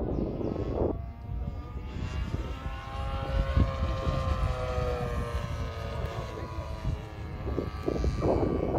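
The 30cc petrol engine and propeller of a 78-inch Pilot RC Edge 540 model aerobatic plane drone overhead, the pitch rising a little and then sliding down as the plane manoeuvres. A low wind rumble on the microphone lies beneath.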